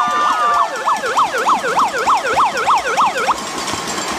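Siren sounding the swim start, sweeping quickly up and down at about three to four sweeps a second, with a steady higher tone over it that ends about half a second in. The siren cuts off near the end, leaving the splashing of the swimmers.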